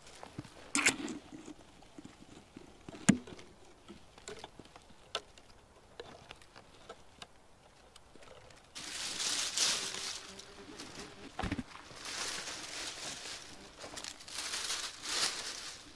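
Scattered snaps and knocks, then from about nine seconds a run of loud rustling in bursts, from dry branches and forest-floor litter being handled or trodden.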